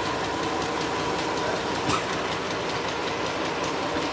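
Small plastic mini sewing machine running steadily as fabric is fed through it: a constant motor whine with a fast, even needle clatter, and a brief click about two seconds in.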